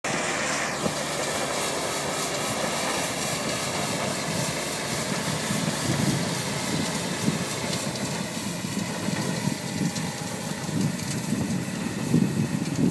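Grasshopper 928 zero-turn mower running at work with its front rotary broom spinning, sweeping gravel: a steady engine drone under a dense brushing hiss. A whine drops in pitch about half a second in, and the sound fades slightly as the machine pulls away.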